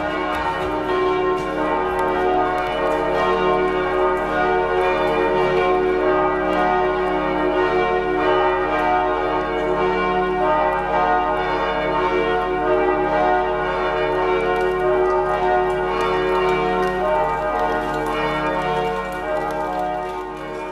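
Several large church bells ringing together in a full peal, strikes overlapping into a dense, continuous ringing that fades out at the end.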